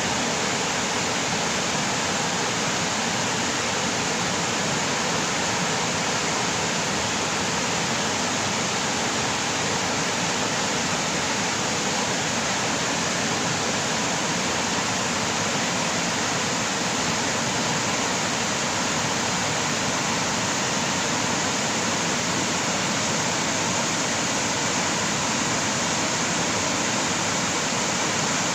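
Mountain stream rushing and splashing over rocks in a steady, unbroken flow.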